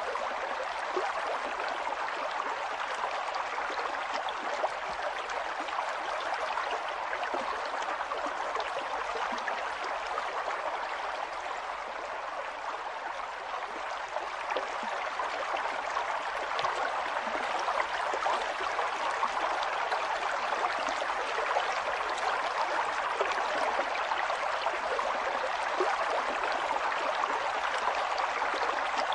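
River water flowing and splashing in a steady rush, with fine bubbling and gurgling throughout.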